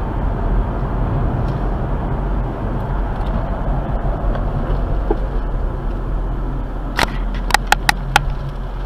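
Steady road and engine noise of a moving car, picked up inside the cabin by a dash camera. Near the end comes a quick run of about six sharp clicks.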